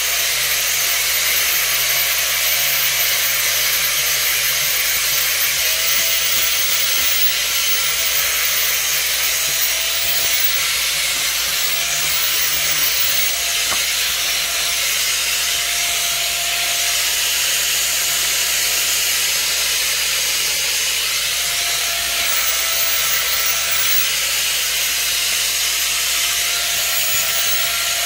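A steady, even hissing noise, with faint wavering tones beneath it.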